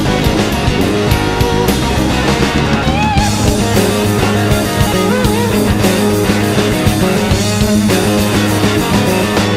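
Rock music with guitars: a song soundtrack playing loudly and steadily.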